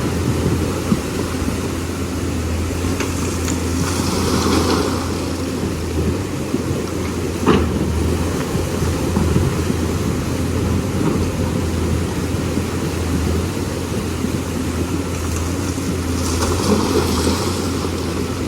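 Lonking excavator's diesel engine running steadily with a low hum, with a hiss twice and a single sharp knock about halfway through.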